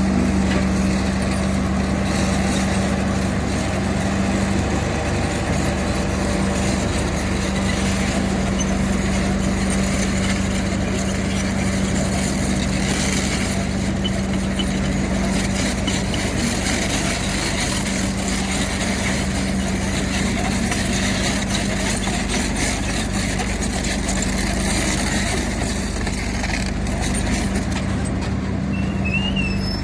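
Diesel engine of heavy earthmoving machinery running steadily under work, with a constant droning hum over a low rumble.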